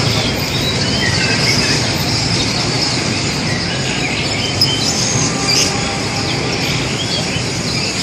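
Many caged songbirds chirping in short, scattered calls over a steady hubbub of crowd and motorbike traffic.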